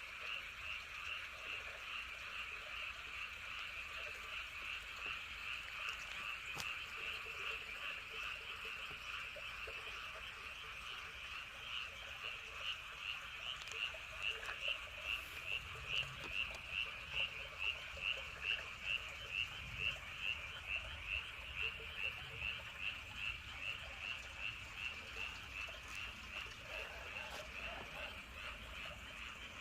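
A chorus of frogs calling at night: a dense, steady croaking, with one caller's pulsed calls standing out at about two a second, loudest in the middle stretch.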